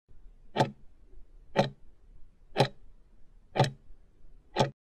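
Countdown timer ticking: five sharp ticks, one a second, then it stops.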